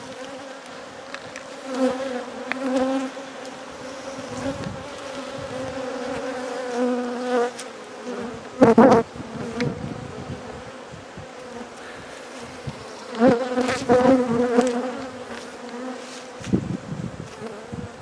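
Agitated honey bees buzzing close around the microphone, a steady hum that swells as individual bees fly near, with loud passes about two seconds in, around the middle, and again about three-quarters through.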